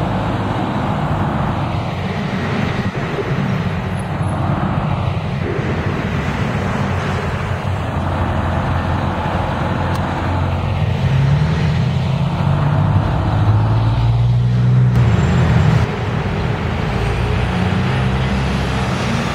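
Diesel city buses and street traffic driving past: a steady engine drone over road noise. A bus engine grows louder through the middle and drops off abruptly about three-quarters of the way in.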